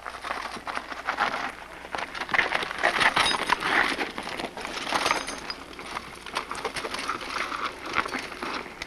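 Mountain bikes coming down a rocky trail: irregular rattling, clicking and crunching of tyres and frames bouncing over rocks and loose gravel.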